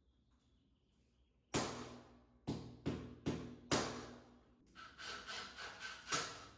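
A hand hammer striking at a concrete wall, five sharp blows with short ringing tails. Near the end a cordless drill/driver runs in quick pulses over a steady motor whine, driving screws to fix a sub panel to the wall.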